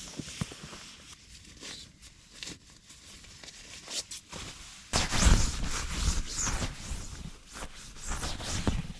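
Rustling and rubbing handling noises with scattered clicks, growing louder about halfway through.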